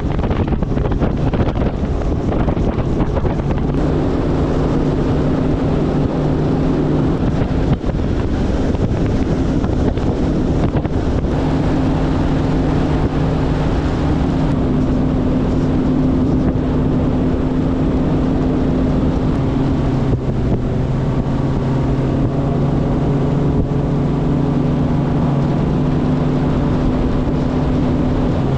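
Bass boat outboard motor running at speed, a steady drone with wind rushing over the microphone. The engine's pitch shifts slightly a few times.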